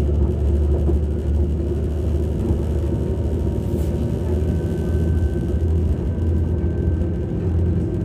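Interior sound of a Class 195 diesel multiple unit: the underfloor MTU diesel engine running with a steady low drone. A faint high whine comes in briefly in the middle.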